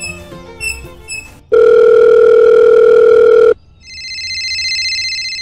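Light plucked background music, cut off by a loud steady electronic beep lasting about two seconds, then a telephone-ring sound effect: a trilling ring that swells in loudness, pauses briefly near the end and starts again.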